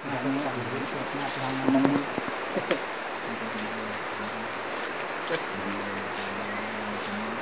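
Insects calling in one steady, unbroken high-pitched tone, with a faint low hum coming and going underneath.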